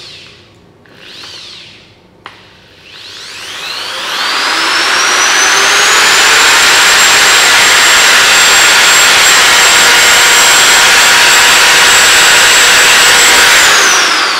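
Bosch GSB 550 550 W corded impact drill running with no load and an empty chuck. After a short blip of the motor and a click about two seconds in, the motor whine climbs to full speed by about five seconds, holds steady there, and winds down near the end.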